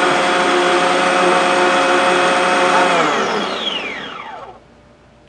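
Margaritaville frozen concoction maker running steadily with a loud whir, then switching off about three seconds in and spinning down, its pitch falling away over a second and a half: the end of its automatic one-button cycle.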